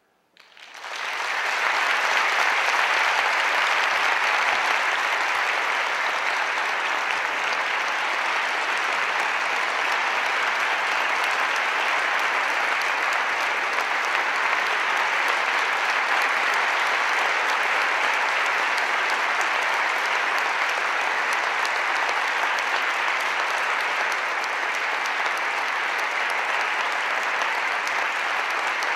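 Audience applauding: a dense, sustained clapping that swells within the first second or two and then holds steady.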